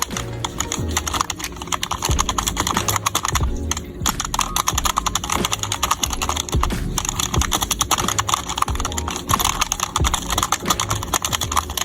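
Rapid, continuous typing on a budget 60% membrane keyboard, the keys clacking in quick succession.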